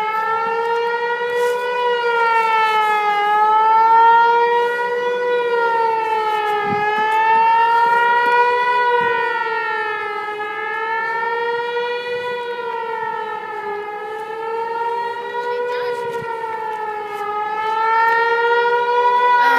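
Civil defense warning siren sounding a steady tone for an emergency alert test, its pitch wavering slightly up and down every two to three seconds.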